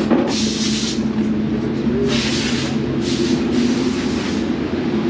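A steady mechanical hum of running machinery, broken by three bursts of hissing, the last and longest lasting about a second and a half.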